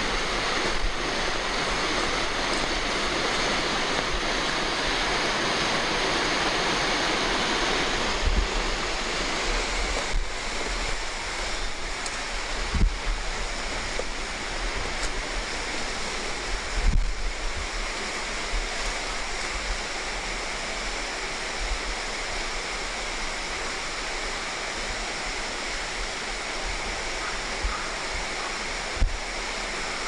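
Steady rush of water from a waterfall about ten metres high, a little fainter after about ten seconds. A few short low thumps come from about eight seconds in.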